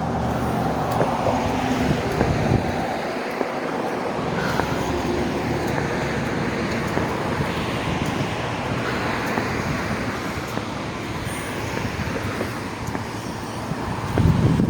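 Road traffic going by: a steady wash of car tyre and engine noise, with a low thump near the end.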